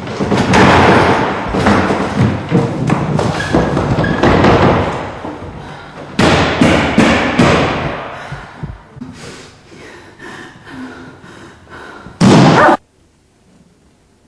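Loud, irregular thumps and bangs, heavy impacts one after another, thinning out over several seconds. A short, very loud burst comes about twelve seconds in, and then the sound cuts off suddenly.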